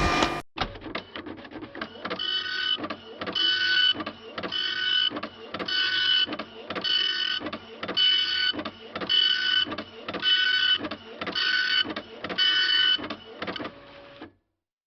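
Printer printing: a rhythmic run of mechanical passes about once a second, each with a high whine, that stops suddenly near the end.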